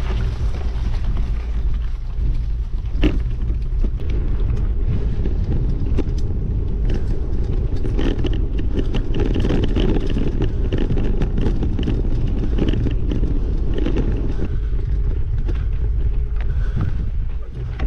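Steady rumble of a vehicle moving along a gravel dirt track, with tyres crunching over stones and scattered small clicks; it fades away near the end.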